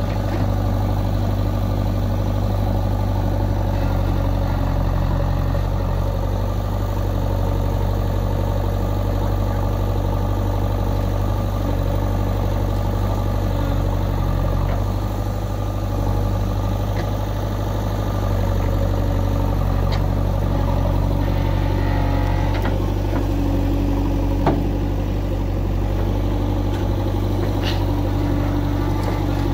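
Diesel engine of a JCB 3DX Eco backhoe loader running steadily as its hydraulic backhoe digs and loads soil, its note shifting slightly under the hydraulic load, with a tractor engine running alongside. One sharp knock late on.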